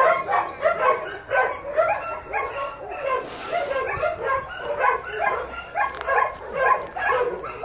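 Dogs in a kennel barking and yipping in a rapid, overlapping string of short high barks, typical of excited greeting.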